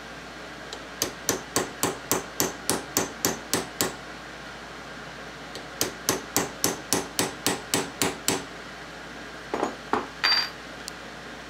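Hammer tapping a steel punch, two runs of about ten quick, evenly spaced light strikes with a pause between, then a brief scrape and ring of metal near the end. The punch is opening up the mashed-in slot in the .22 rifle barrel that is trapping the broken ejector.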